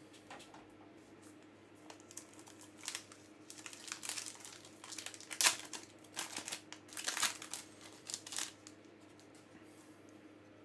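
Foil trading-card pack wrapper being torn open and crinkled by hand: a run of sharp crackling rustles, loudest about halfway through, dying away near the end.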